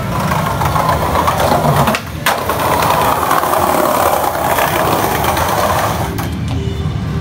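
Skateboard wheels rolling over tiled paving: a steady rolling rumble that breaks off briefly about two seconds in and eases off near the end.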